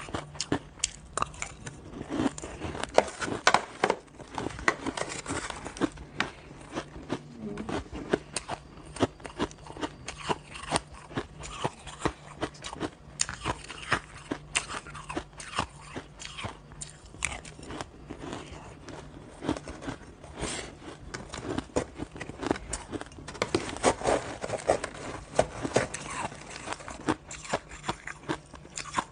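Close-up crunching and chewing of shaved ice: a dense, irregular run of sharp crunches as mouthfuls are bitten and chewed.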